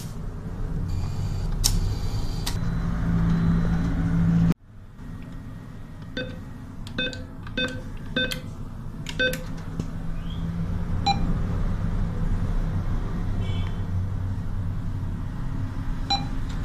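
NCR ATM keypad beeping as a PIN is keyed in: a quick, uneven run of about eight short beeps, then single beeps a few seconds apart as menu options are pressed, over a steady low hum.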